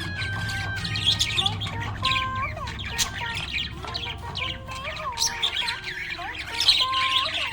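Budgerigar chattering: a continuous run of quick, high chirps mixed with short sliding whistled notes.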